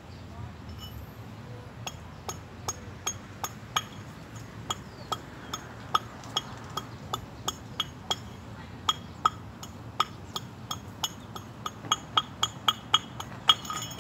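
A run of sharp metallic taps, each with a short ring, starting about two seconds in at two to three a second and coming faster near the end.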